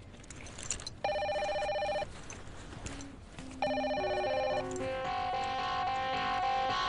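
Cordless telephone ringing twice, each ring a fast electronic trill about a second long. Background music comes in after the second ring.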